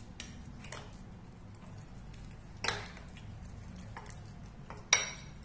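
Steel spoon stirring thick semolina batter in a glass bowl, clinking against the glass a few times, with two louder clinks about halfway through and near the end.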